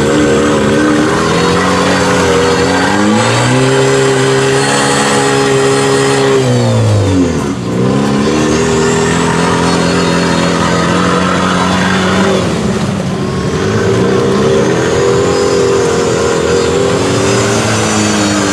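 Mud bog rig's engine revving hard in long held pulls. The revs drop off sharply about seven seconds in and again around twelve seconds, then climb back up each time.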